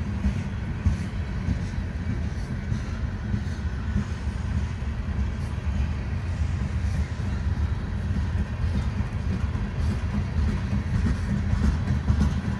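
Freight train's gondola cars rolling past: a steady low rumble of steel wheels on rail, with faint irregular clicks.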